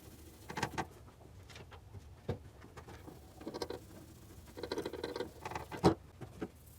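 Small handling sounds of a metal power-steering pipe being scrubbed clean: short bouts of scratchy rubbing and scattered light clicks and knocks, the sharpest knock near the end.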